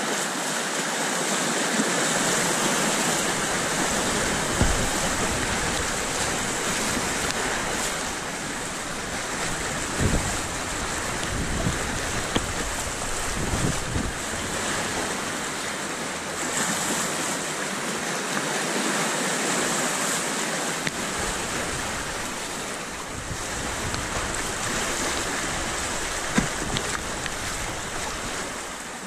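River rapids: whitewater rushing and churning steadily around a kayak, heard close at water level, with a few dull thumps now and then.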